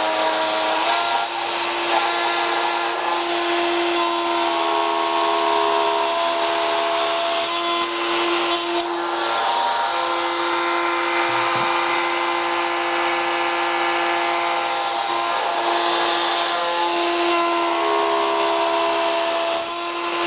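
Triton plunge router running at full speed on the Workcentre carriage, cutting a 5 mm deep rebate for a housing joint across a board. It gives a steady whine that dips briefly in pitch a few times under load.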